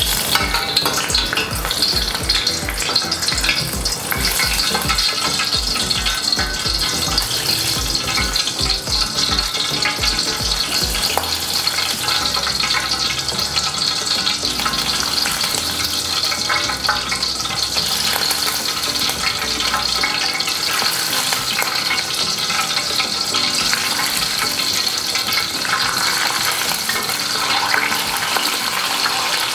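Scale-on fingermark bream fillet deep-frying in hot oil, sizzling and crackling steadily as oil is ladled over the scales to crisp them.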